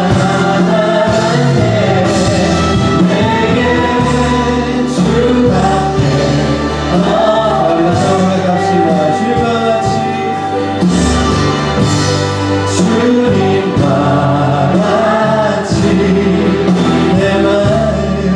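Church worship music: a group of voices singing a gospel song together, with band accompaniment that keeps a steady beat.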